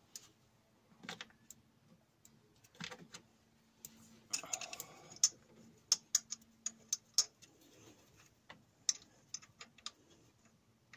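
Irregular metallic clicks and light taps as a hand works a new engine mount and its fittings into place in a Ford Cortina Mk3 engine bay, busiest from about four seconds in.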